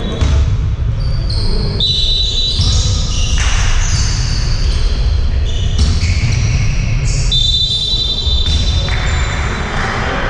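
Basketball game sounds in a sports hall: a ball bouncing on the court and players moving, over a steady low rumble.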